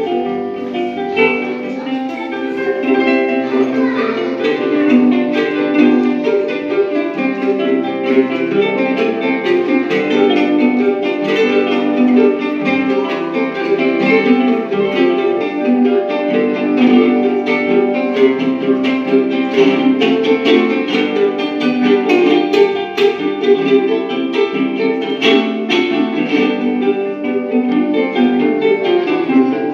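Instrumental duet of two acoustic plucked string instruments, a small ukulele-sized one and a guitar, strummed and picked together in a steady rhythm.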